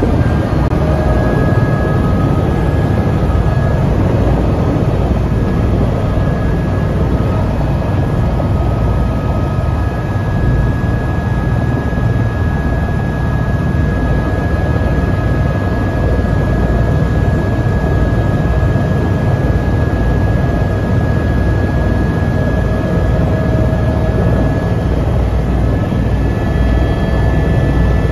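Turbine helicopter running on the ground, heard from inside the cabin: a steady low rumble under a high turbine whine held on a couple of even pitches.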